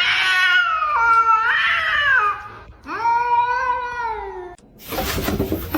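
Domestic cat yowling: two long, drawn-out caterwauls that waver and bend in pitch, the second lower and steadier, followed near the end by a short rough noisy burst.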